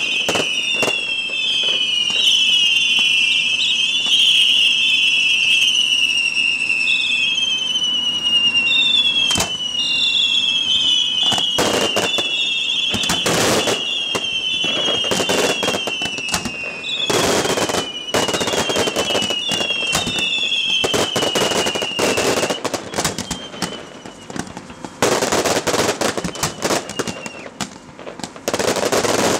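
A fireworks display firing in quick succession: many overlapping whistling fireworks, each whistle falling in pitch, over sharp bangs and crackle. Near the end the whistles die away, leaving loud bursts of crackle.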